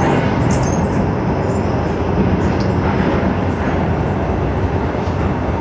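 Loud, steady rumbling noise with no clear pitch, heaviest in the low end.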